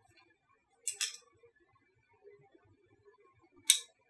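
Sharp clicks from a Panasonic Lumix G7 mirrorless camera being switched on and handled: a quick double click about a second in and a single click near the end.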